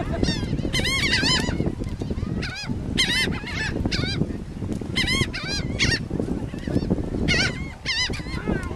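Birds calling repeatedly in short, arched, high-pitched calls that come in clusters every second or two, over a steady low rumble.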